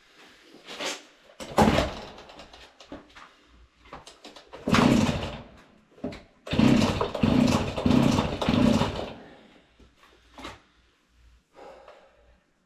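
Two-stroke Husqvarna 40 chainsaw being pull-started: several yanks of the recoil starter cord, the last four in quick succession. The engine turns over with each pull but does not catch and run.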